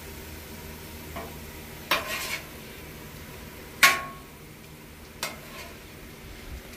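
Metal spatula scraping and knocking on a Blackstone steel griddle while stirring food, over a low steady sizzle. There are a few short scrapes, the loudest a sharp metallic clang about four seconds in that rings briefly.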